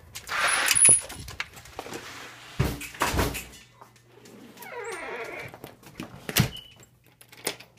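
A door being opened and shut: a rush of noise at first, then two heavy thuds about two and a half and three seconds in, a short sound falling in pitch, and a sharp knock near the end.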